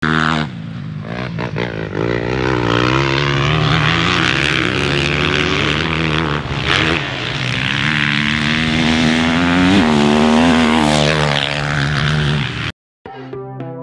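2023 Honda CRF450R's single-cylinder four-stroke engine revving hard as the bike is ridden, its pitch climbing and dropping with throttle and gear changes. The sound cuts off suddenly near the end.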